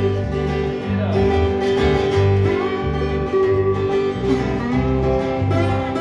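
Live band playing an instrumental passage with no singing: resonator guitar, acoustic guitar and electric bass guitar, the bass changing notes about twice a second.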